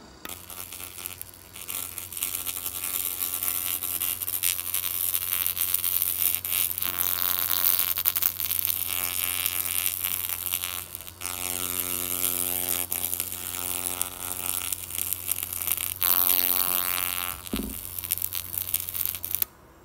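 A 200 W laser cleaning machine ablating paint from wood: a dense crackling hiss over a steady buzzing hum with a tone, which breaks off briefly about midway and stops just before the end.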